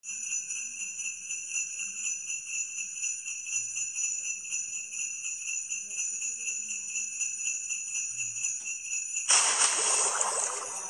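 Sleigh bells jingling, shaken in a steady rhythm. About nine seconds in, a loud rushing whoosh takes over for a second or so.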